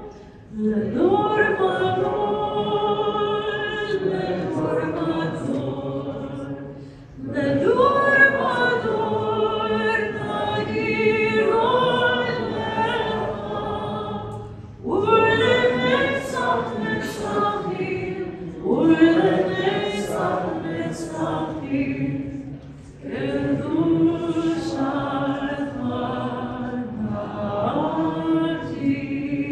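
Voices singing a synagogue hymn together, in about five long phrases with a brief breath-pause between each.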